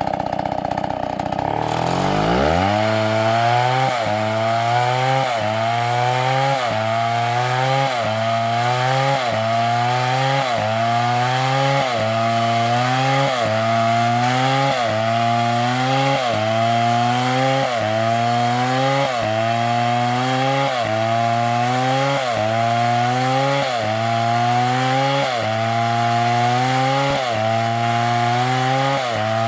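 Two-stroke chainsaw running at high revs, which drops in pitch about two seconds in as the chain bites into the wood. It then keeps cutting under load, its pitch rising and falling regularly about once a second.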